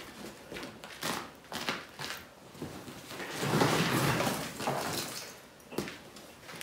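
Scraping and knocking as the rear of a vintage Ski-Doo snowmobile is hauled across a concrete garage floor, loudest for about a second in the middle, with footsteps and a sharp knock near the end.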